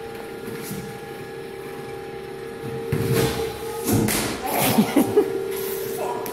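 Treadmill motor and belt running with a steady whine, then several heavy thumps about three to five seconds in as a person is thrown off the moving belt onto the floor.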